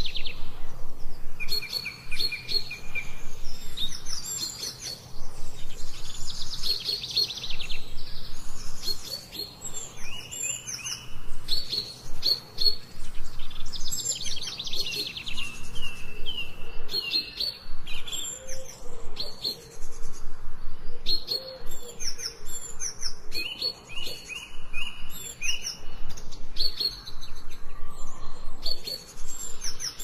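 Several songbirds chirping and singing, with many short, high repeated chirps and trills overlapping at different pitches, broken by brief gaps.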